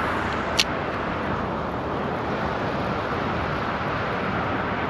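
Steady rush of fast-flowing stream current, with one brief sharp click about half a second in.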